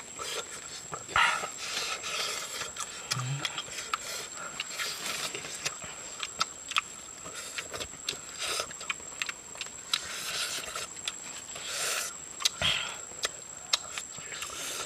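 Close-up eating sounds of two people eating roasted snake meat with their fingers: wet chewing and lip-smacking in irregular short clicks and smacks, over a faint steady high-pitched whine.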